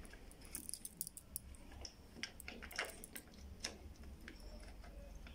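Faint, irregular clicks and light plastic knocks from a Suzuki Gixxer SF's right-hand switch housing being handled and pulled apart around the throttle grip.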